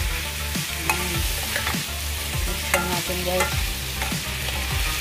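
Prawns and garlic sizzling in butter in a wok, stirred with a metal spatula that scrapes and knocks against the pan at irregular moments.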